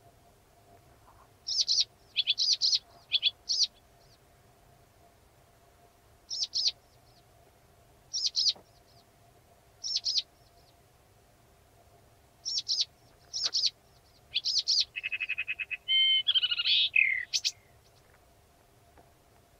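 Blyth's reed warbler singing: short, sharp high-pitched notes delivered in separate clusters with pauses between them, ending in a faster, buzzier run of repeated notes.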